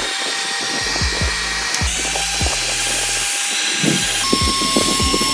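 Heat gun blowing a steady rush of hot air onto a phone's cracked back glass to soften the adhesive, under background music with a steady beat.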